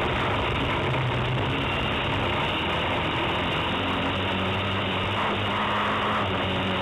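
Autocross race car's engine running hard, heard from inside the car's cockpit over constant road and wind noise; the engine note shifts, sitting higher in the second half.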